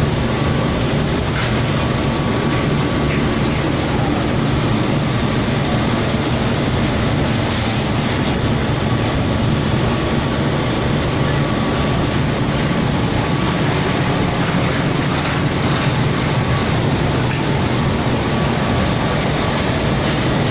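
Steady, loud mechanical rumble of running machinery, unbroken throughout.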